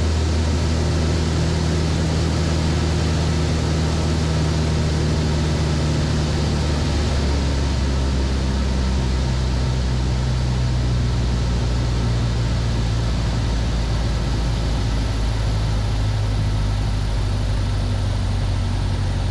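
Van's RV-7's piston engine and propeller running steadily, heard inside the cockpit. The engine note shifts lower about a third of the way through and again about two-thirds of the way through, as power is reduced for a practice stall.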